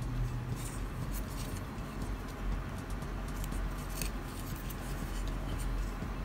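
Light scattered plastic clicks and taps as hands handle and fit parts to a Tamiya Mini 4WD AR plastic chassis, over a steady low hum.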